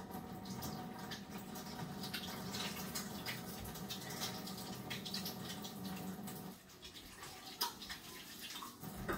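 Kitchen tap running steadily, shut off about six and a half seconds in, followed by a couple of sharp clinks.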